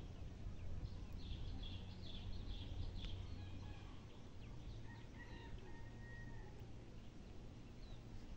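Birds calling faintly: a run of short chirps in the first few seconds, then one longer held call about five seconds in, over a steady low background rumble.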